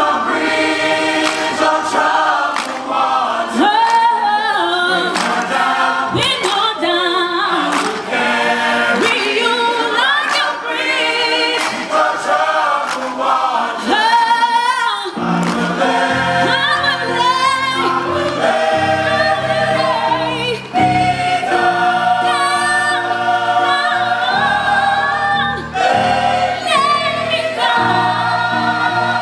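A choir singing a song, several voice parts holding long notes together, with lower parts joining in about halfway through.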